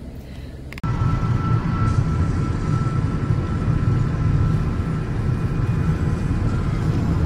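Road noise of a car driving at speed, heard from inside: a loud, steady low rumble of tyres and engine that cuts in suddenly about a second in, with a faint steady high tone above it.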